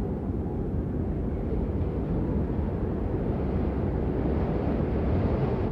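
Steady wind noise, a low rushing rumble that holds at an even level.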